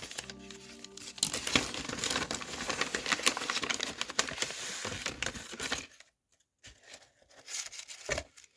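A small packaging bag crinkling as it is handled and opened: a dense run of crinkling and rustling starting about a second in and lasting about five seconds, then a few scattered crackles.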